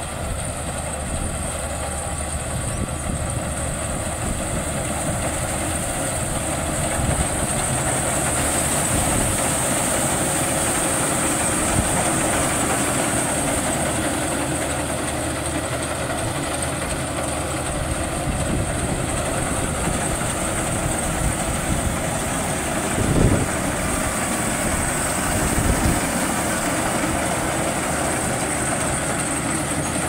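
Maxxi Bimo 102L rice combine harvester's diesel engine running steadily under load as the machine cuts and threshes rice, with a continuous mechanical clatter. Two brief louder knocks come near the end.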